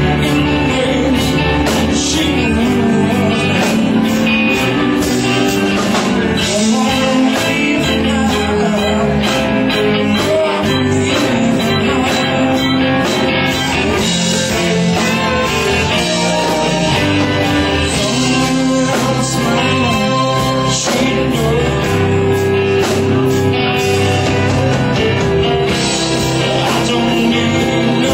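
A live rock band playing, with guitar and a singer.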